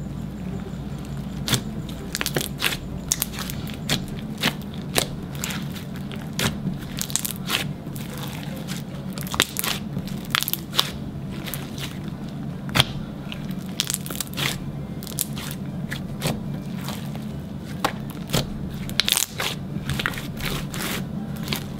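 Gold glitter slime being stretched, folded and pressed by hand, giving irregular sticky clicks and pops, a few a second, over a low steady hum.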